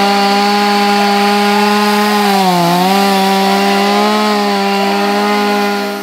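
Petrol chainsaw running at high revs, cutting through a wooden post; its pitch dips briefly about two and a half seconds in, then comes back up.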